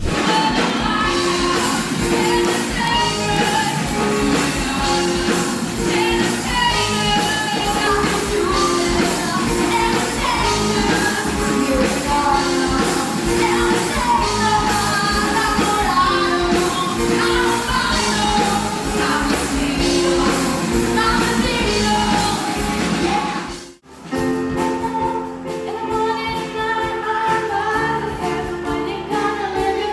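A pop-rock song sung over a band. About 24 seconds in it cuts off abruptly, and a different song with singing starts.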